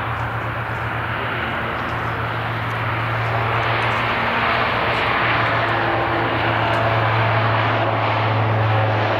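Bombardier Dash 8 Q400 turboprop airliner at takeoff power on its takeoff roll, its two Pratt & Whitney PW150A engines driving six-blade propellers: a steady low propeller drone over a broad rushing engine noise, growing louder from about three seconds in.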